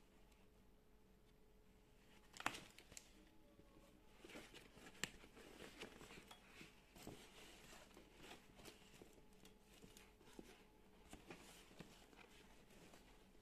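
Faint rustling and handling noise from a canvas tote bag and its clear plastic wrapping as it is opened and felt inside, with two sharper clicks about two and a half and five seconds in.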